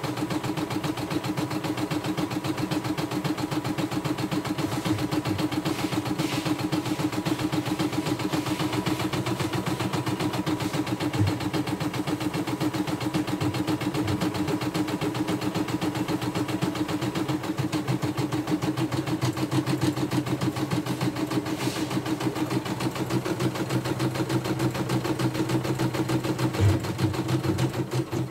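CNY E960 portable computerized embroidery machine stitching a design, its needle running in a fast, steady rhythm.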